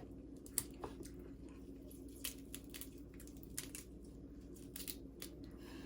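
Faint scattered clicks and crackles of cooked blue crab being eaten, with shell cracked and meat picked out, over a low steady hum.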